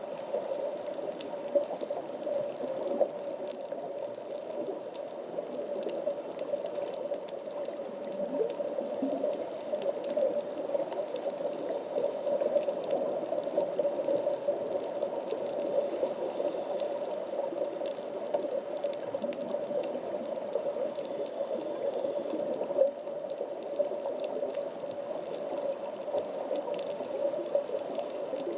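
Underwater reef ambience heard through a waterproof camera housing: a steady hum-like wash with a scatter of faint clicks and crackles throughout.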